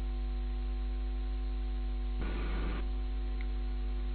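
Steady electrical mains hum and buzz. A brief burst of noise, about half a second long, comes a little after two seconds in.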